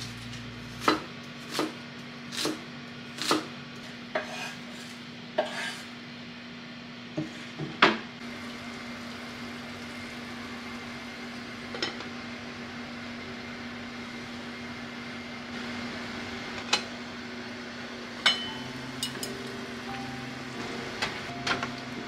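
Cooking at a gas stove: a run of sharp knocks and clinks of utensils against a stainless steel pot and a wooden cutting board, thickest in the first eight seconds and sparser after, over a steady hiss.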